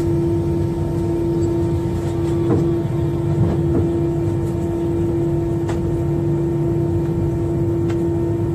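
Jet airliner cabin noise while taxiing: a steady engine hum over a low rumble, with no spool-up.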